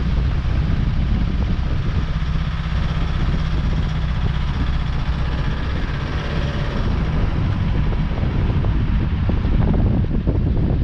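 Toyota HiAce van on the move: a steady low engine drone with road noise, and wind buffeting the microphone.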